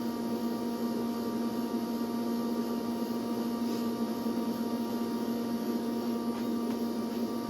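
Steady electrical hum, one low tone with fainter higher tones over a light hiss.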